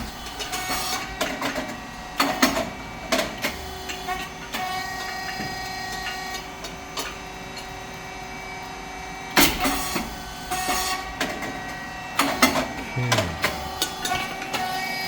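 SYP8080 puffed rice cake machine running, its hydraulic pump and motor giving a steady hum. Over the hum come clicks and knocks of the moulds and cylinder, and one loud bang about nine and a half seconds in as a cycle pops.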